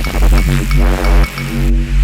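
Electronic dance music with heavy pulsing bass and synth, in the style of dubstep.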